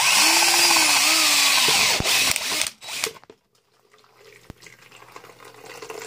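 Power drill boring into a PVC furnace exhaust pipe, its motor pitch dipping and wavering under load, stopping about three seconds in. A few seconds later, water trapped in the pipe starts running from the hole into a plastic bucket, growing louder.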